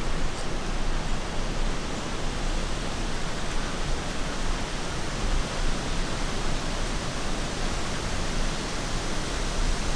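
Steady, even rushing noise with a low rumble underneath and no distinct events.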